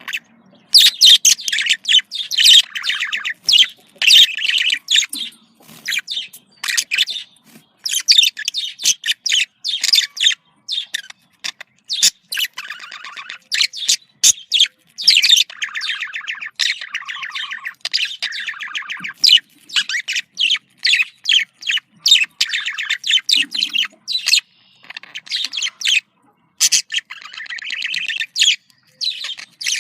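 Budgerigar chattering and warbling: rapid chirps and trills in runs of a second or two, broken by short pauses.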